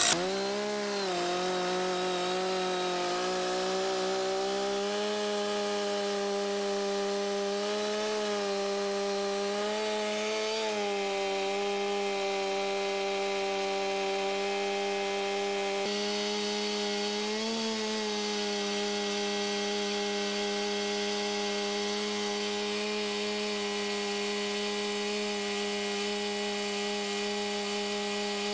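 Stihl 460 two-stroke chainsaw with a 25-inch bar held at steady full throttle, ripping lengthwise through a grand fir log in a chainsaw mill attachment. The engine pitch wavers briefly a few times under the load of the cut.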